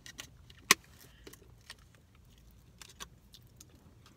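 Orange plastic spoon tapping and scraping in a clear plastic acai bowl: scattered light clicks, with one sharp click just under a second in, over a low steady rumble.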